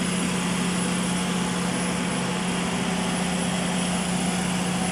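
Diesel engine of a generator set running at a steady speed: an even, unchanging drone with a constant hum.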